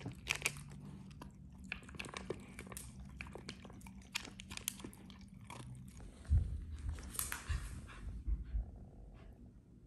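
Dog eating dry kibble from a plastic slow-feeder bowl: a run of small crunches and clicks as it bites the kibble and nudges it against the bowl. A few soft thumps follow about six to eight seconds in.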